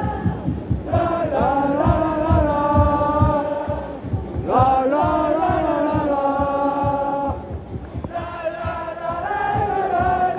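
A large crowd of football supporters singing a chant together, in long held notes across three phrases, over a steady low beat.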